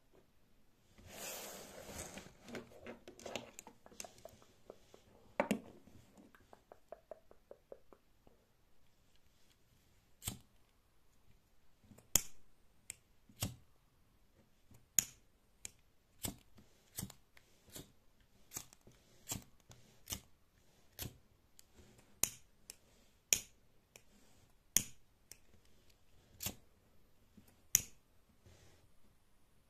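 Two disposable pocket lighters being flicked and lit, one sharp click about every second. It starts with a few seconds of rustling from the hands handling them.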